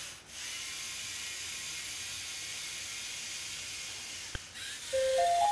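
Steady recording hiss with no distinct robot motor sound. A single sharp click comes about four seconds in, and near the end a simple melody of plain stepping tones begins.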